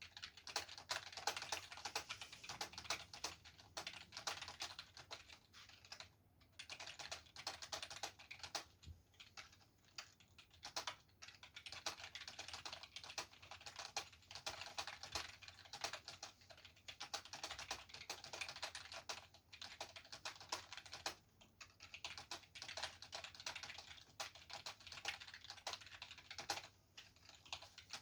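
Fast touch-typing on a computer keyboard during a typing speed test: a dense, continuous run of keystrokes, broken by short pauses a few times.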